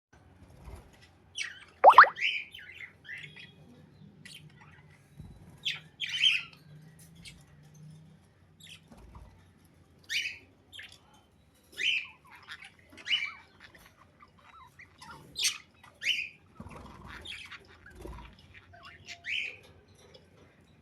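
Budgerigars giving short, scattered chirps and squawks, about a dozen calls with gaps between them; the loudest is a sharp squawk about two seconds in.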